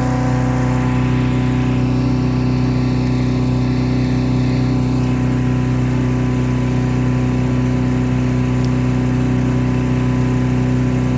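Engine of a Predator chipper/shredder running steadily at a constant speed.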